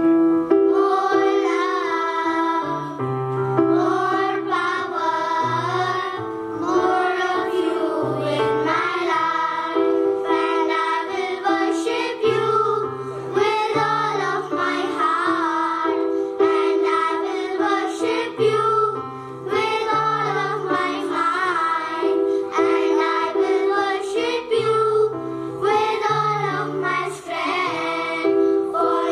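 A children's choir singing a song together into microphones, over an accompaniment of held low notes.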